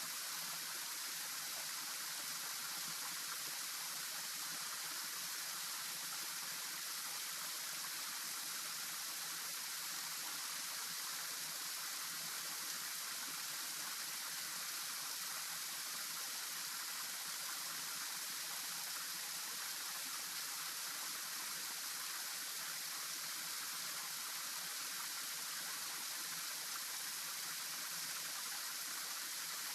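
Steady rush of a flowing stream, an even hiss with no distinct splashes or other events.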